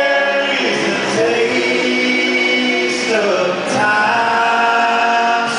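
Several voices singing close multi-part harmony in long held chords. The chord changes twice, with little or no instrument audible behind the voices.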